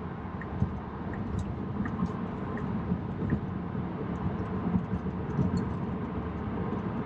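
Steady road and tyre noise heard inside a Tesla Model 3's cabin at highway speed, with a few faint scattered ticks.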